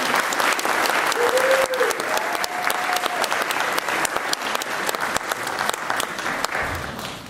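Audience applauding, with a short raised voice calling out about a second in; the clapping thins out near the end.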